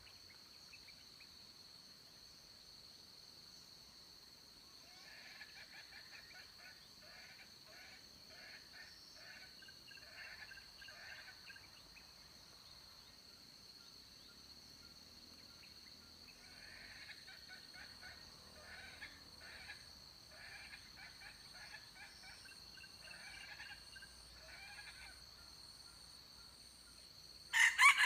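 Junglefowl rooster giving two long runs of rapid, repeated clucking calls, then a sudden loud burst near the end as a second rooster comes up beside it. A steady high-pitched tone runs underneath.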